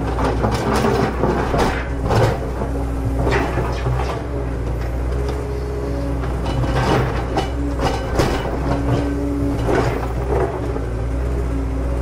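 A toy remote-control excavator's small electric motors whine, stepping between a few steady pitches as they switch on and off. Irregular gear clatter and scraping sound now and then.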